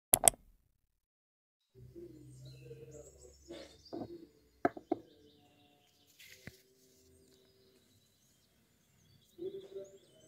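Two sharp mouse clicks, then birds chirping and tweeting over a low steady background. A few light knocks of small objects being set down on a desk come between about three and a half and five seconds in.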